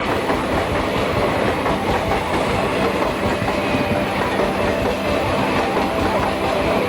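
Moving train: a steady, even rumble and rattle of railroad cars with the clickety-clack of wheels over the rail joints.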